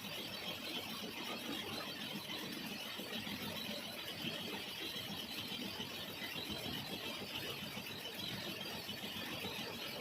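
Metal lathe running steadily while cutting a 3 TPI thread in a cast iron nut, an even, unbroken noise with a high edge.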